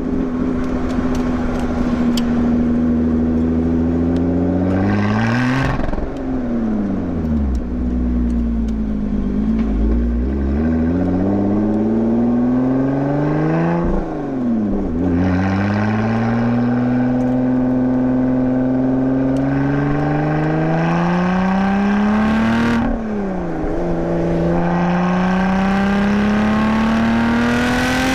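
Lotus Exige 430 Cup's supercharged 3.5-litre V6 accelerating hard, its pitch climbing, easing off and falling briefly about a quarter of the way in, then climbing again with two sharp drops at gear upshifts. Brief exhaust cracks sound at some of the shifts.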